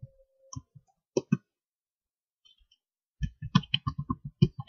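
Computer keyboard typing. A few scattered keystrokes come first, then a quick run of about a dozen clicks near the end.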